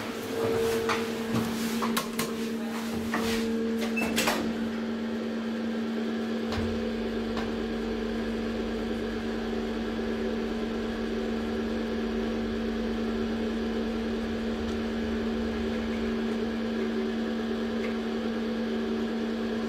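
DEVE hydraulic elevator riding between floors: a steady hum with a few clicks and knocks in the first seconds, then a low rumble from about six seconds in as the car travels.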